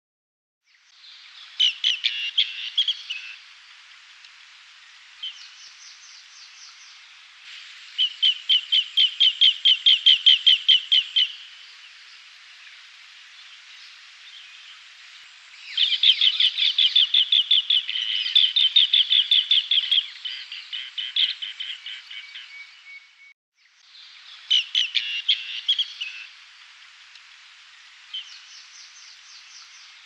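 Asian green bee-eater calling: bursts of rapid, trilled high notes repeated in quick series, with short pauses between the series.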